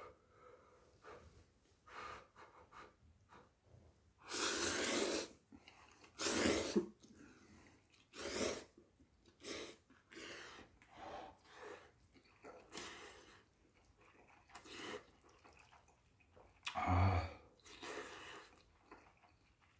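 A person slurping scalding-hot instant ramyeon noodles: a string of short noisy slurps and breaths, the longest and loudest lasting about a second, a few seconds in.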